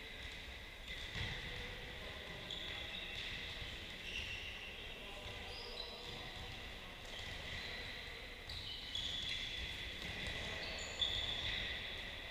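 Faint ambience of a sports hall during handball practice: a steady high whine with scattered short high squeaks from the court.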